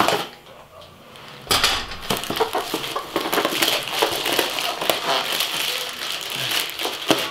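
A plastic mailer bag being cut with a knife and then torn open and pulled off by hand. A sharp stroke at the start, then from about a second and a half in, continuous crinkling and ripping of plastic wrap.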